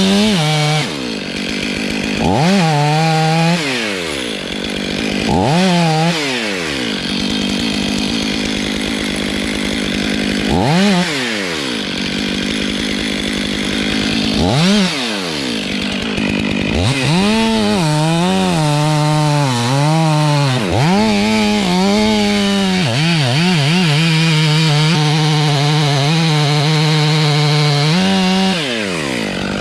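Stihl MS 500i fuel-injected two-stroke chainsaw cutting into a poplar trunk. The engine speed rises and falls again and again as the chain goes in and out of the wood, then holds high for a long stretch through the cut and drops off just before the end.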